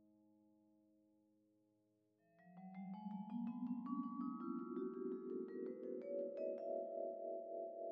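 Background music: a held chord fading away, then a bit over two seconds in, a quick upward run of bell-like struck notes over a swelling chord that settles into a held, pulsing chord.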